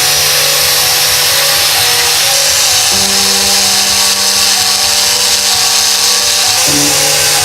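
Loud electronic music with a dense, hissy top and held bass notes that change pitch about three seconds in and again near the end.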